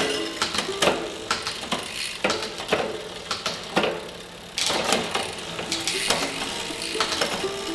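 Background music with a steady percussive beat and a stepping melodic line.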